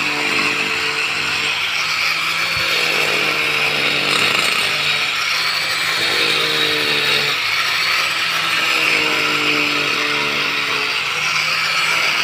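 Hand-held angle grinder cutting along a crack in a concrete roof, running steadily with a loud grinding noise.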